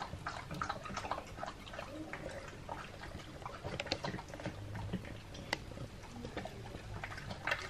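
Two Australian cattle dogs eating hamburger in gravy off plates on the floor: wet chewing, smacking and lapping in an irregular patter, with a few sharp clicks.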